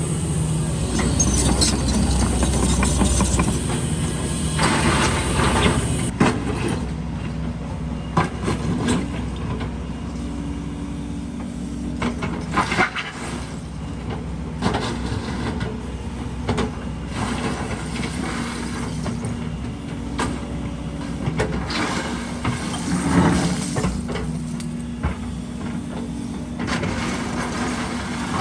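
Diesel engine of heavy earthmoving machinery running steadily, with scattered knocks and clanks of metal and rubble, and a louder, noisier stretch over the first few seconds.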